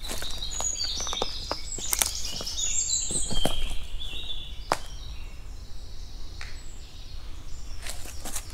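A small songbird singing quick chirping phrases, busiest in the first few seconds and taking up again near the end, over scattered sharp clicks and a steady low rumble.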